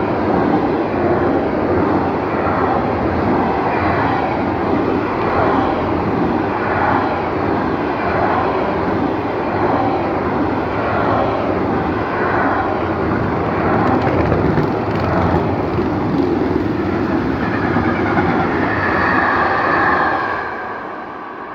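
Intermodal freight train of pocket wagons carrying road semi-trailers passing at speed: steady rumble and clatter of steel wheels on the rails, swelling in a regular beat a little over once a second as the wheelsets pass. A brief high-pitched whine near the end, then the noise drops away as the last wagon goes by.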